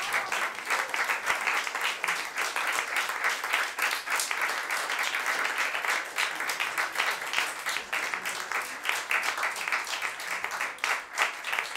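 A small audience applauding, with steady clapping of many hands.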